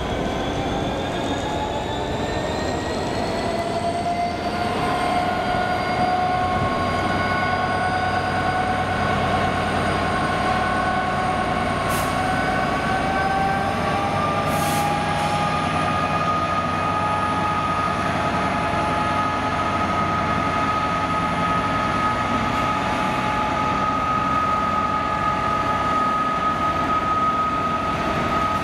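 A train accelerating at a station, its motor whine made of several tones rising slowly in pitch as it picks up speed, over a steady running rumble.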